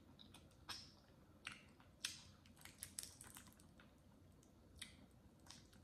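Boiled crawfish shell being cracked and peeled by hand: a scatter of small, sharp crackles and clicks, thickest two to three seconds in.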